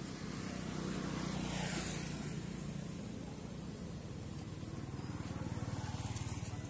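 A motor vehicle's engine running, a steady low hum. Its sound swells and then falls away about two seconds in, and swells again near the end.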